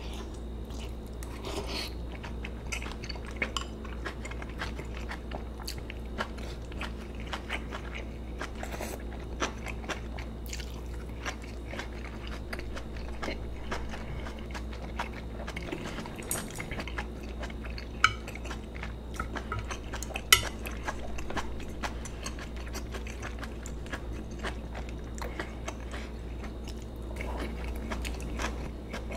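Close-miked chewing of a mouthful of braised kimchi and saury with rice: many small wet clicks and squelches of the mouth, with two sharper clicks a little past the middle. A steady low hum runs underneath.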